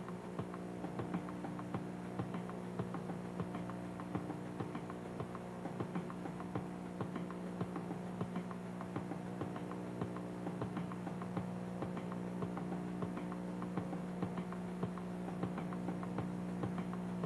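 Electric stair-climbing hand truck running: a steady motor hum with many small irregular clicks and ticks, several a second.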